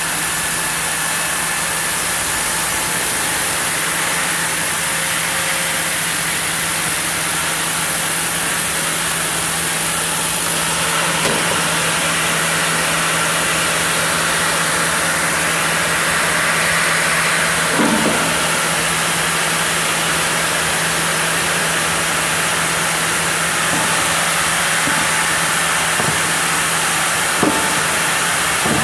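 Sawmill machinery running steadily: a constant hum with one low tone under a strong, even hiss, and a few faint knocks.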